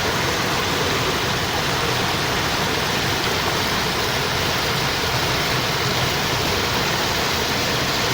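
Water flowing in a steady, unbroken rush.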